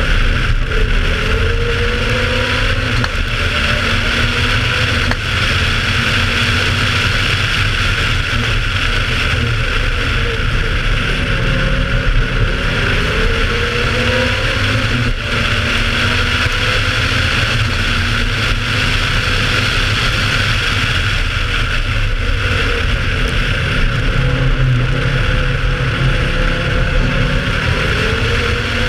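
Audi Quattro A2 Group B rally car's turbocharged five-cylinder engine running hard, its pitch sweeping up again and again as it accelerates through the gears, with a steady hiss over it.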